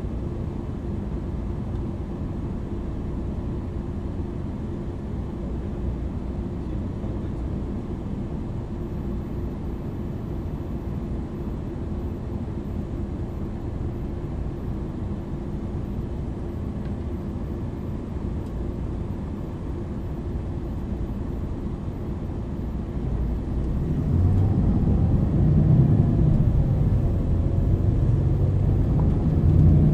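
Interior sound of a MAN NL 323 city bus's diesel engine and ZF EcoLife automatic drivetrain running steadily, then growing louder from about 24 s in as the bus accelerates, with a whine that rises and falls.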